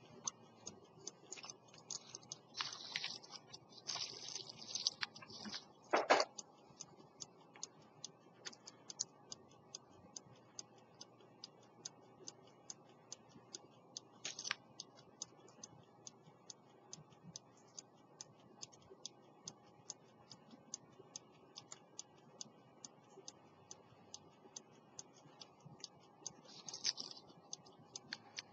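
18th-century English fusee pocket watch with a verge escapement ticking: the restored movement running with rapid, even ticks. A few louder rustles and a sharp knock fall in the first six seconds, with short rustles midway and near the end.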